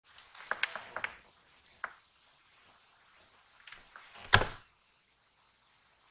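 Faint sizzle of wheat-dough dumplings deep-frying in ghee, broken by several sharp clicks of steel tongs and one louder knock about four seconds in.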